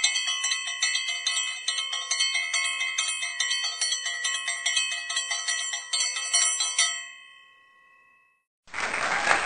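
Bright bell-like chiming, a rapid run of strikes at about four or five a second that rings out and fades about seven seconds in. Applause starts in the last second.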